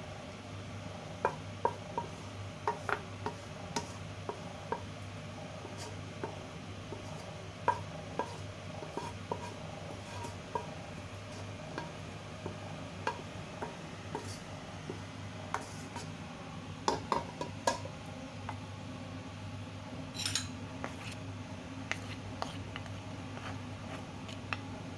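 Wooden spatula scraping and tapping against a nonstick pan and a ceramic bowl as cooked diced carrot and chayote are scooped from one to the other: irregular clicks and knocks, some close together, over a low steady hum.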